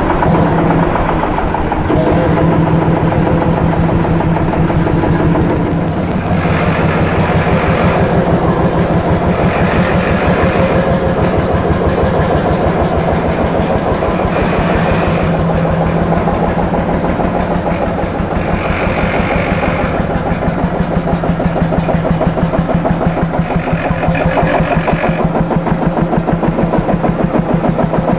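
Lanz Bulldog D6016 tractor's single-cylinder two-stroke hot-bulb engine running after restoration, with a steady rapid thumping beat.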